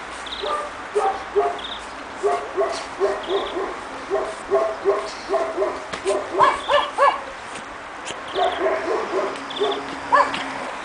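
Pekingese puppies barking in short, high-pitched yaps, two or three a second, loudest about six to seven seconds in.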